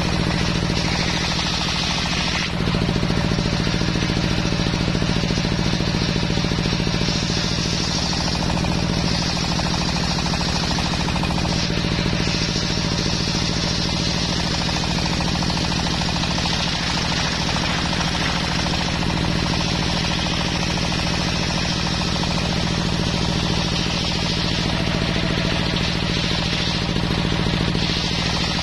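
Belt-driven table circular saw ripping a teak plank lengthwise: the blade cuts steadily through the wood over the constant hum of the machine's drive, with the cutting noise swelling and easing a little as the board is pushed through.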